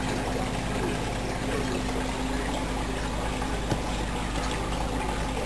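Steady trickle of running water over a low pump hum, with one light click a little before four seconds in.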